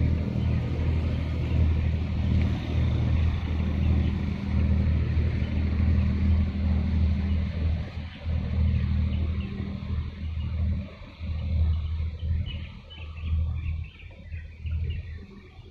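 An engine running, a low steady drone that wavers in loudness and fades toward the end, with birds chirping faintly in the last few seconds.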